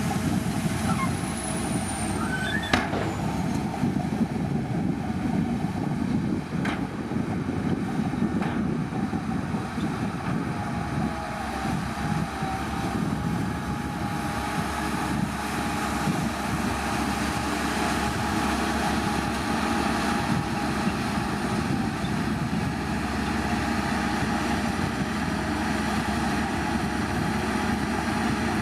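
Shantui bulldozer's diesel engine running steadily, with a few sharp metallic clanks around three, seven and eight seconds in.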